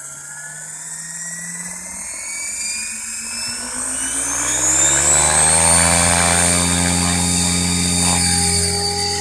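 Logo 500 electric RC helicopter spooling up on the ground. The whine of its Align 600MX motor and the hum of the rotor rise steadily in pitch and loudness for about five seconds, then hold steady at speed.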